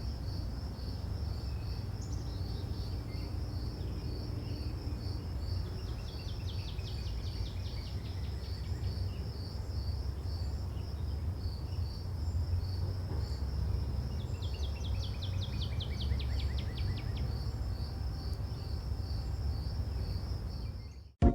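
Insects chirping steadily in a fast, even pulse of about three or four chirps a second over a low rumble, with a bird twice singing a run of quick notes that fall in pitch. The sound cuts off suddenly near the end.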